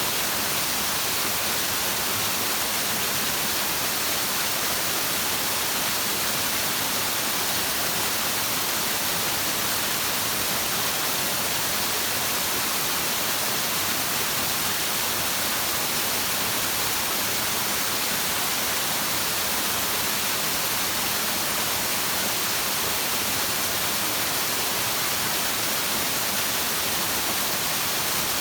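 Steady rushing hiss that never changes in level, brightest in the treble, a sleep track billed as a flowing stream.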